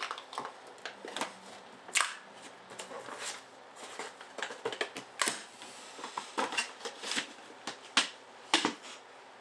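Handling noise as a box of trading cards is tipped up and a paper-wrapped pack is drawn out: a run of irregular sharp clicks, taps and rustles, the loudest about two, five, eight and eight and a half seconds in.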